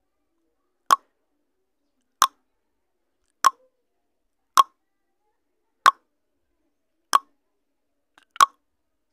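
Countdown timer sound effect: a short tick repeating evenly about once every 1.25 seconds, seven in all, with silence between.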